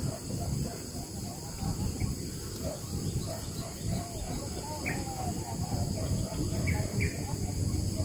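Faint short bird chirps and calls over a steady low wind rumble and a continuous high insect drone.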